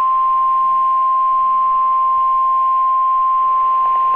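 NOAA Weather Radio 1050 Hz warning alarm tone sounding as one long, steady, loud tone over faint radio hiss. It is the alert that comes before a warning is read out.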